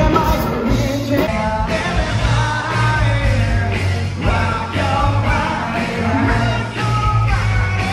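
Live rock band playing, a man singing over electric guitars, bass and drums.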